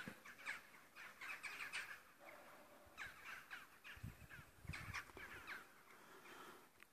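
Crows cawing, faint, in quick runs of several harsh caws with short gaps between. A brief low rumble comes about four seconds in.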